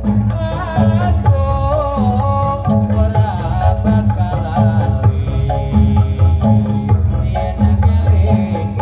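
Live Javanese ensemble music played through loudspeakers: kendang hand drums beating a steady rhythm with deep, repeated low strokes, under a wavering melody line.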